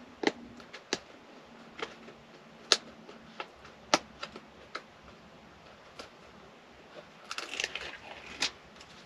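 Pen and paper mailing envelope being handled at a counter: scattered sharp clicks and taps, then a short burst of paper rustling about seven seconds in.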